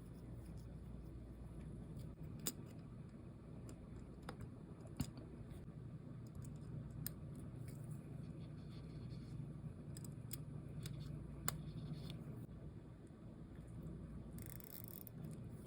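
Faint, scattered clicks of small metal watchmaker's tools against the parts of a mechanical watch movement, over a low steady hum. A short hiss comes near the end.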